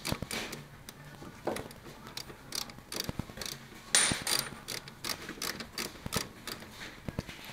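Socket ratchet clicking in short, irregular runs as 8 mm bolts are loosened, with a louder cluster of clicks about four seconds in.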